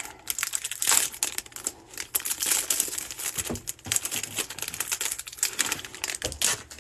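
Clear plastic wrapper on a pack of football trading cards crinkling as it is peeled off by hand: an irregular run of crackles that stops shortly before the end.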